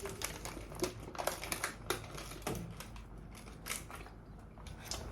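Close, irregular crunching and crackling of someone biting into and chewing a pie, with many quick clicks and crackles that thin out after about three seconds.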